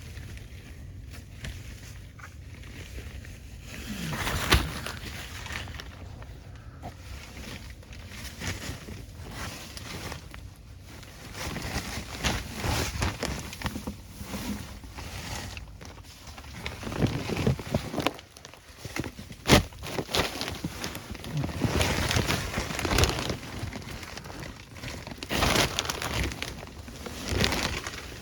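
Rustling, scraping and shuffling of a person crawling through a crawl space under a house, with a couple of sharp knocks.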